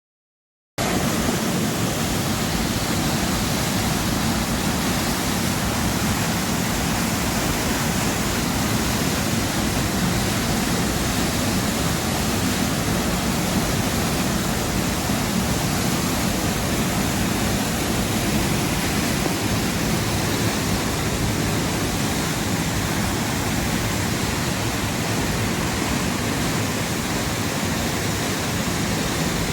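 Waterfall rushing steadily, a dense even roar of falling water that starts abruptly about a second in.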